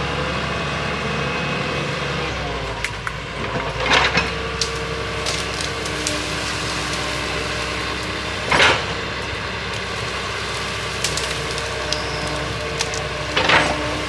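Excavator engine running steadily with a held hydraulic whine, broken three times by a short loud crack, about four seconds in, in the middle and near the end.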